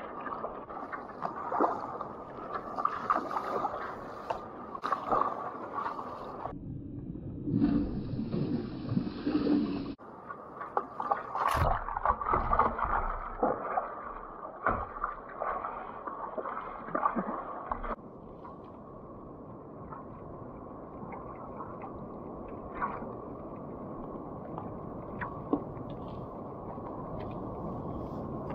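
Water splashing and sloshing around a fishing kayak's hull as it is paddled through small surf, with the splash of paddle strokes. The sound changes abruptly three times and is steadier and calmer near the end.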